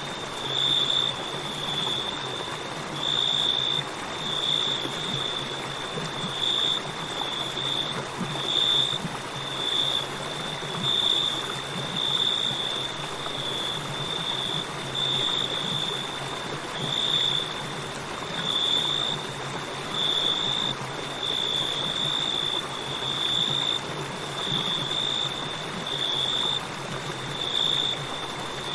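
A river flowing with a steady rushing sound, and crickets chirping over it in a continuous high-pitched song that pulses a little under once a second.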